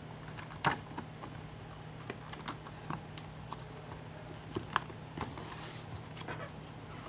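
Scattered light clicks and taps with a brief rustle a little past the middle: trading-card packaging, a cardboard box and foil packs, being handled and opened.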